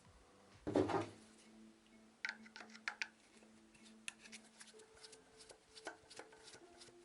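Small clicks, taps and a short scrape of hand tools and metal motor parts as a vacuum cleaner motor's carbon brush is unscrewed and worked loose. A brief louder rustle comes about a second in, and sharp clicks follow. Faint background music plays throughout.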